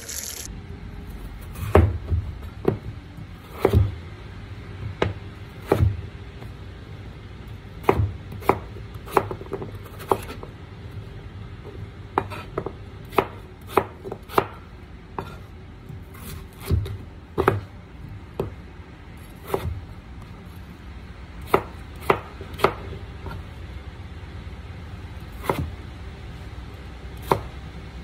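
Kitchen knife chopping peeled raw potatoes into chunks on a cutting board: irregular sharp knocks of the blade striking the board, one every second or so, each with a dull thud.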